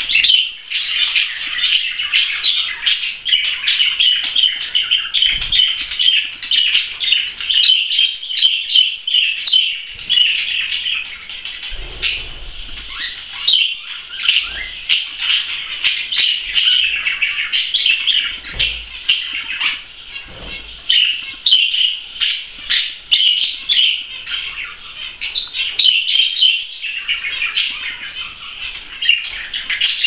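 Budgerigars chattering: a continuous stream of quick chirps and warbles.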